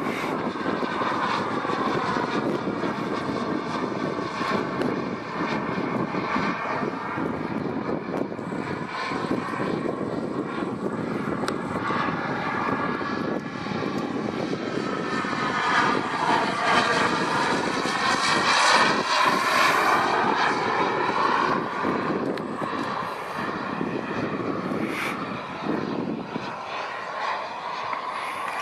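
Kingtech K-180G2 turbine of a Design Aviation Diamant RC model jet in flight: a steady jet rush and whine that swells to its loudest about two-thirds of the way in as the jet passes close, then eases off.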